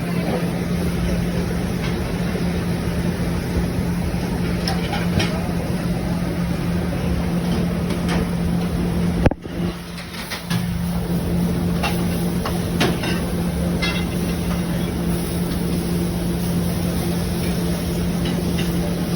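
Commercial kitchen din: the steady hum of exhaust hood fans with scattered clicks and clatter of utensils and pans. The sound briefly drops away about nine seconds in.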